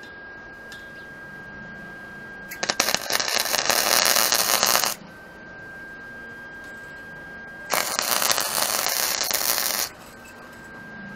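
Wire-feed (MIG) welder arc crackling and hissing as it welds a steel exhaust pipe, in two runs of about two seconds each with a pause between them.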